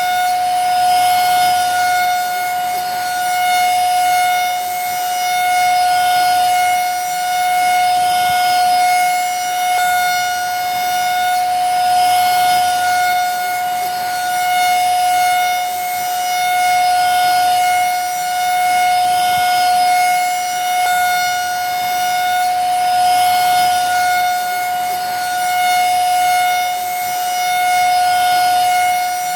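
Vacuum cleaner running steadily: a constant high motor whine over airflow noise, with slight slow swells in loudness.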